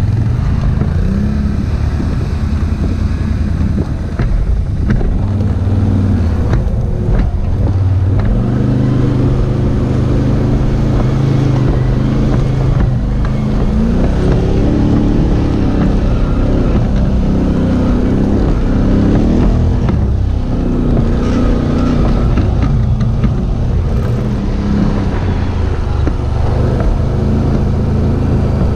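Quad bike (ATV) engine running under load while riding off-road, its pitch rising and falling with the throttle. A few short knocks come in the first third.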